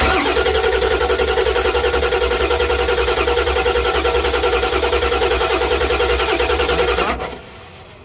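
A 7.3 L Power Stroke V8 diesel being cranked over on its starter with the valve covers off, in a steady, rhythmic chug that cuts off about seven seconds in without the engine catching. It is a crank-no-start: a high-pressure oil leak past the blown O-rings of the number three injector keeps injection oil pressure from building.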